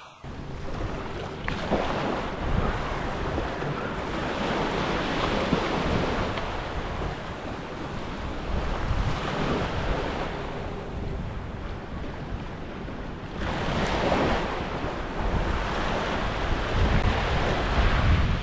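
Small waves washing up on a sandy beach, a wash about every four seconds, with wind buffeting the microphone.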